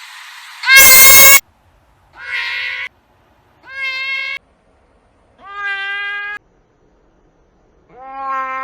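A series of separate cat meows, each a different sound effect, one after another with short silences between. The first, about a second in, is the loudest and harshest; four steadier meows follow about every second and a half, each rising quickly and then holding its pitch, and the last one runs on past the end.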